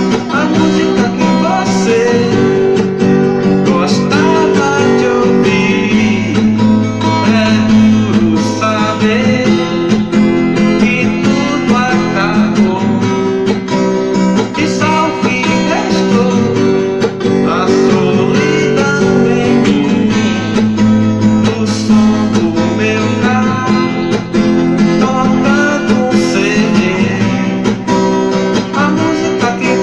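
A song with strummed acoustic guitar and a singing voice, playing continuously.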